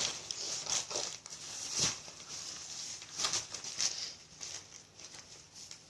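Irregular rustling and crinkling of fabric travel packing bags being handled, with a few louder scrapes and crinkles, dying down near the end.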